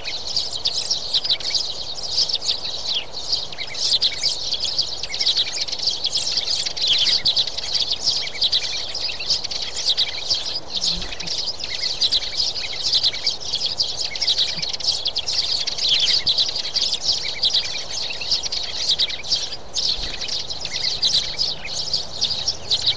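A flock of sparrows chirping, with many short, high chirps overlapping without a break.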